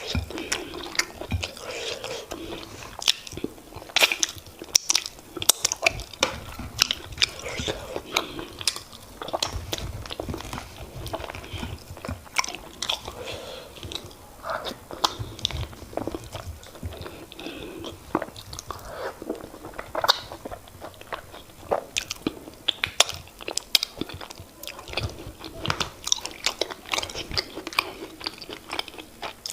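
Close-miked eating of fufu and oha soup: wet chewing and mouth sounds with many irregular sharp clicks and smacks.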